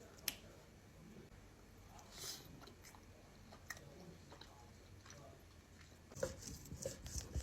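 A person eating steak close to the microphone: faint chewing with scattered mouth clicks and smacks, growing busier near the end.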